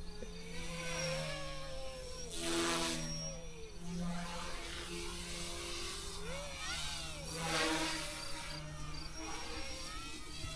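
Small electric RC helicopter in flight, its motor and rotor whine rising and falling in pitch as the throttle changes, with two louder rushing swells about two and a half and seven and a half seconds in as the rotor works harder or passes close.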